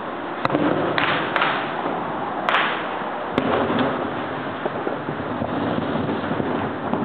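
Fireworks going off: about five sharp bangs in the first three and a half seconds, a couple trailing off in a brief crackle, over a steady hiss of background noise.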